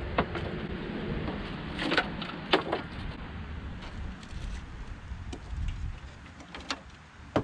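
A few scattered sharp clicks and knocks of metal parts being handled in a Volkswagen Beetle's engine bay, over a steady low background rumble.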